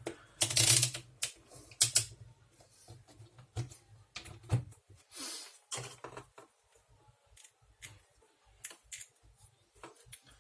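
Irregular small clicks and knocks of hands handling test leads, clips and tools on a workbench, a few sharper ones in the first two seconds and around the middle.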